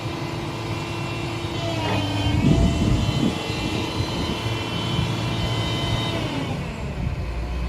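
Doosan DX225LC-7 excavator running, with its engine humming low under a whine of tones. There are a few knocks about two and a half seconds in, and the whine slides down in pitch about six seconds in as the machine slows.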